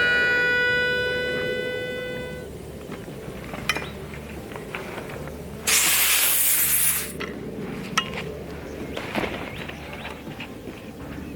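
A steady tone with overtones fades away over the first two seconds. About six seconds in, a loud hiss of compressed air lasts about a second and a half: the fill line being bled after topping up a PCP air rifle from a tank. Scattered light clicks and knocks follow.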